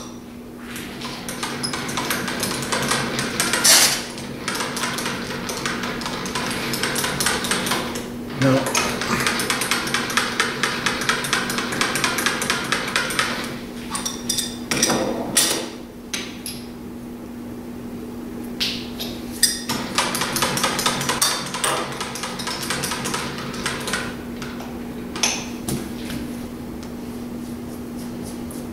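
Metal lathe running with a steady hum as a cutting tool chamfers the edge of a steel part, giving stretches of gritty scraping from the cut, separated by short pauses and a few sharp knocks.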